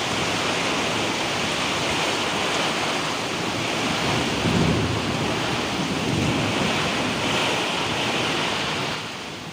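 Windstorm blowing hard, with gusts buffeting the microphone over a steady rushing noise of wind and rain; it eases slightly about nine seconds in.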